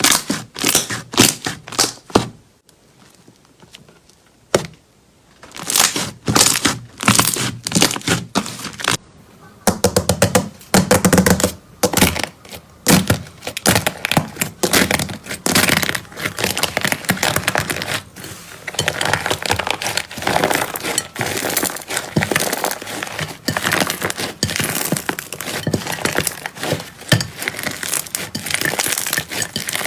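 Slime being squeezed and pressed by hand, giving sharp crackling and popping clicks, a few at a time at first and then a dense, continuous crackle.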